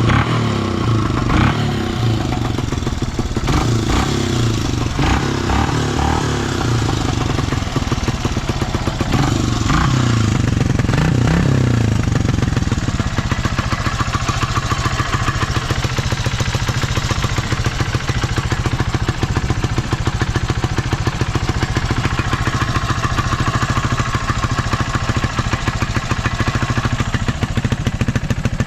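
Honda XL250S's single-cylinder four-stroke engine running just after starting, blipped unevenly for about the first twelve seconds, then settling to a steady idle. The seller describes it as revving cleanly with no abnormal noise after long storage.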